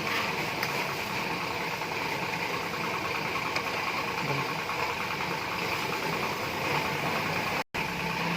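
Steady mechanical running noise, like an engine idling, with a fine rapid pulsing. It cuts out completely for a split second near the end.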